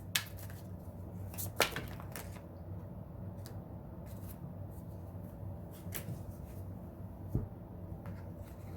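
Tarot cards being shuffled and handled, with a few scattered soft flicks and taps of the cards, over a steady low hum.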